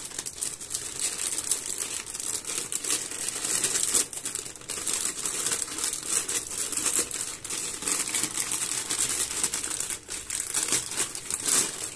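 Thin clear plastic packaging bags crinkling and rustling continuously as hands dig the figure's parts out of them.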